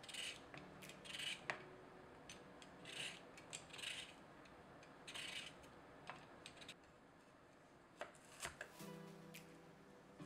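Soft, short scraping strokes of a carrot being peeled, several in the first half, then a few light clicks against the cutting board. Faint background music underneath.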